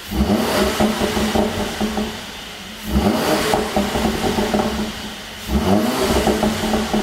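Mercedes-AMG C43's twin-turbo V6 revved three times, the pitch climbing and falling each time, with crackles and pops from a pop-and-bang exhaust tune as the revs drop, settling to a quieter idle between blips.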